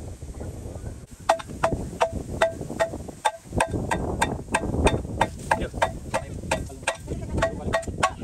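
Rhythmic blows of a hammer on metal, about three a second, each with a short ringing note. They start about a second in, break off for a couple of seconds in the middle, and pick up again, over a low rumble.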